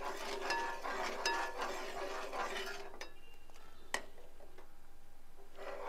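Spoon stirring a thickening brahmi lehyam paste in a pan: steady scraping with a few light clinks in the first second or so, and one sharp tap about four seconds in.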